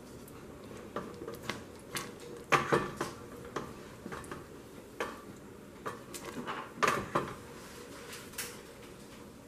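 Wooden spoon stirring a thick yogurt sauce in a stainless steel pot, knocking and scraping against the pot's side in irregular clicks. The loudest knocks come about two and a half seconds in and again about seven seconds in.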